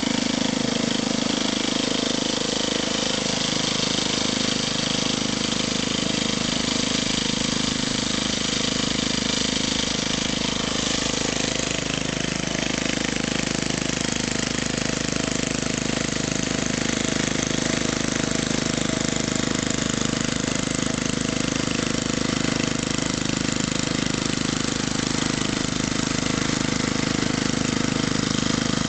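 Vintage Snapper 'Snappin Turtle' self-propelled mower running steadily while mowing. Its small gasoline engine, not the original one, drives the blade.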